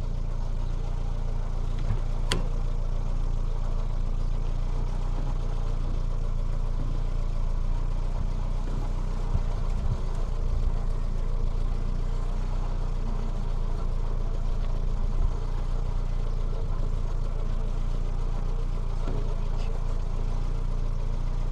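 Car engine idling steadily, with a single sharp click about two seconds in.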